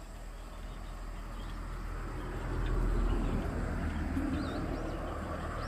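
A passing vehicle: a low rumble that swells to a peak about three seconds in, then slowly fades.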